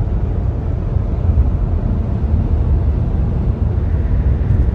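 Inside a car cruising on an open highway: the steady low rumble of tyres and engine in the cabin.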